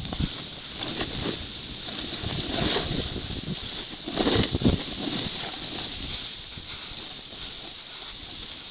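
Edges scraping and hissing over snow while descending a steep mogul run, with wind noise on the microphone. Heavier scrapes come about three seconds in and again around four and a half seconds in.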